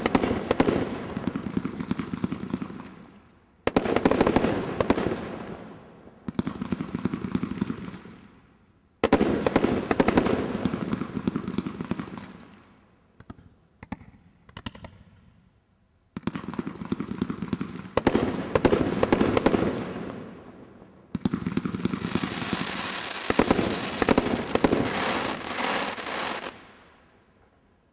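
Stealth 'Midnight' 107-shot firework cake firing in volleys, each a rapid run of launch thumps and loud bangs of bursting shells, with short pauses between them. Near the end comes a long stretch of dense crackling from the crackling-star finale, which dies away at the close.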